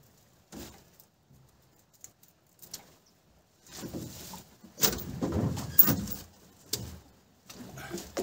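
A wet gill net being hauled and handled in a small boat, with scattered knocks against the hull and a louder cluster of thumps and rustling about five to six seconds in, including one sharp click.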